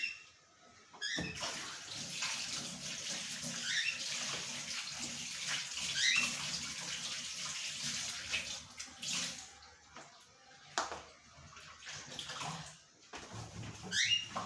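Water running from a kitchen tap, as in washing at the sink; it starts about a second in and stops about ten seconds in. Several short, high, rising squeaks come over it.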